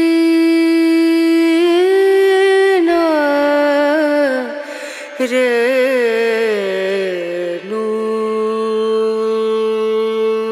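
Background music: a slow melody of long held notes, with sliding, wavering turns between about two and seven seconds in, then settling on a lower held note.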